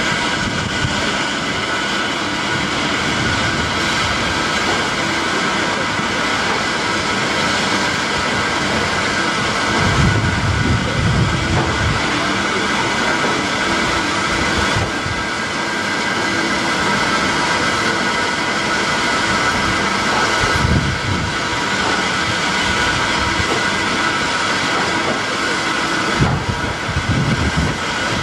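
Electric multiple-unit train running slowly past: a steady hum with a few steady tones, broken by low thumps of wheels over rail joints about ten seconds in, again around twenty seconds, and near the end.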